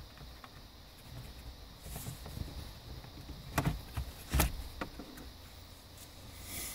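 A few scattered knocks and clicks of handling, the two loudest about three and a half and four and a half seconds in, over a faint low rumble.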